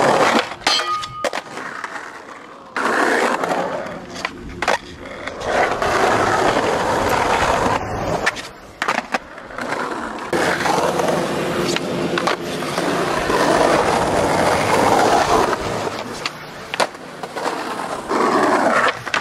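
Skateboard wheels rolling over concrete and asphalt: a long, even rolling noise that swells and fades. Sharp clacks of the board popping and landing come several times in the first second or two, and a few more come later.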